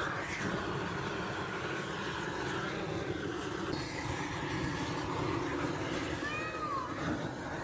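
Gas torch burning with a steady rushing noise as its flame singes the hair off a cow's head.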